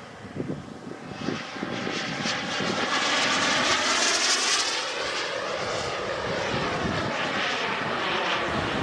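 The small gas-turbine engine of an Elite Aerosports Havoc SS RC jet running, growing louder to a peak about four seconds in and then holding steady.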